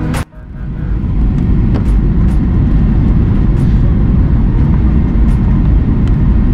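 Airliner cabin noise on final approach: a steady low rumble of jet engines and rushing air, building over the first second and then holding even.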